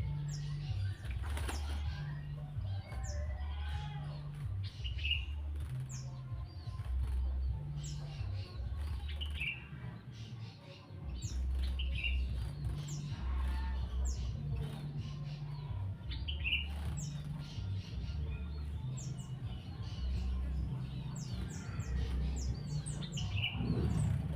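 Cucak jenggot (grey-cheeked bulbul) fluttering and flapping its wings while being bathed. Short high chirps recur every second or two, with a louder call every few seconds.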